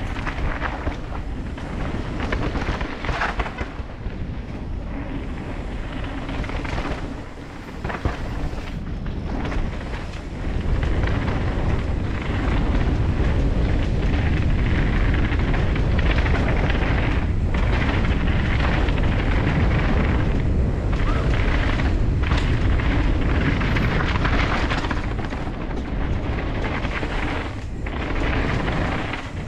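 Mountain bike descending a dirt trail at speed, heard from a helmet-mounted camera: wind rushing over the microphone and tyres rumbling over the dirt, with occasional knocks from bumps. The rumble grows louder about ten seconds in.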